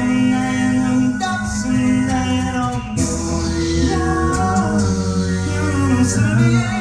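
An a cappella group singing a dubstep-style arrangement live: sustained sung chords over a deep sung bass line, punctuated by beatboxed snare hits about every second and a half.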